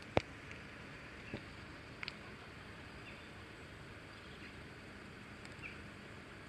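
Quiet outdoor background hiss with one sharp click just after the start and two softer clicks a second or two later. A few faint, short high chirps from small birds come through near the end.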